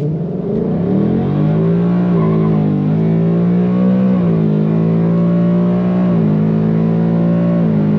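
2020 Ford Mustang GT's 5.0 V8 under full-throttle acceleration from a standing start. The engine note climbs in pitch, drops sharply at each upshift, and climbs again, through about four shifts.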